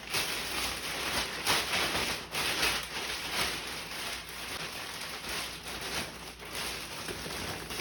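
Steady hissing water noise with irregular splashes, like a tap running during cleaning.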